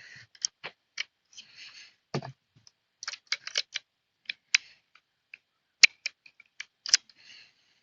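Heritage Rough Rider single-action .22 revolver being handled: a run of irregular small metallic clicks and light rattles as its .22 Long Rifle cylinder is swapped for the .22 Magnum cylinder.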